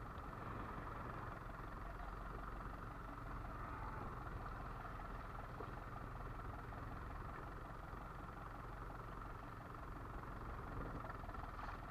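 Fishing boat's engine running steadily, a low, even hum with no change in speed.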